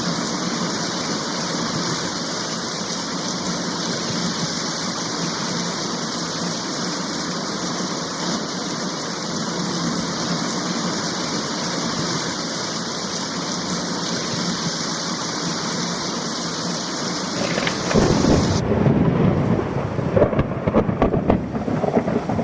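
Heavy rain falling as a steady, even hiss, which about eighteen seconds in switches suddenly to a louder, uneven, deeper rumble of thunder over rain.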